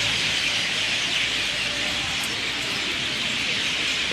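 Thousands of birds chirping together in one big banyan tree: a dense, steady wash of chirps with no single call standing out.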